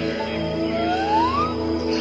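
Ambient new-age music: sustained droning pad chords with a slow gliding tone that rises in pitch over about a second and a half.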